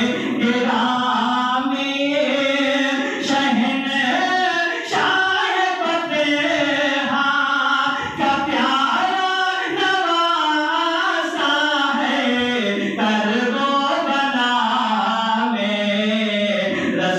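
A man's voice in continuous melodic recitation, long notes held and bent up and down in a chanting style, sung into a microphone and carried by a loudspeaker system.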